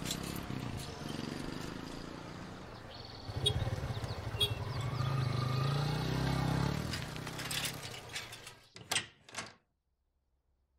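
Busy street traffic ambience, motorbike and scooter engines passing, with an engine note rising and falling in the middle. A few sharp knocks near the end, then the sound cuts off suddenly.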